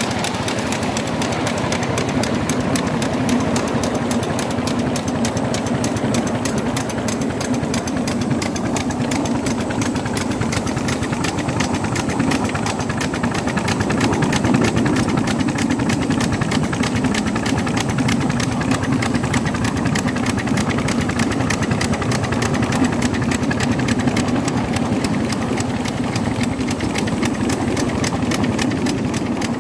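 Miniature 7¼-inch gauge steam locomotive running along the track, heard from the driver's seat: a steady, fast, even beat of exhaust and running gear over the rails.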